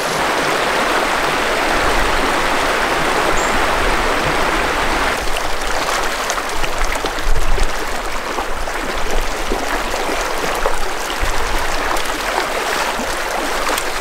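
Small, shallow mountain stream running over rocks, a steady rush of water. From about five seconds in it turns choppier, with irregular splashes as a hiker and a dog wade through the shallows; the loudest comes a little past the middle.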